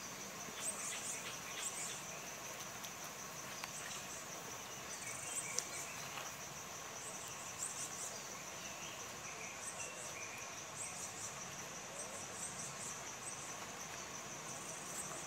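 Insects droning steadily at a high pitch, with short higher chirps repeating on top every second or so. A few light clicks, the sharpest about five and a half seconds in.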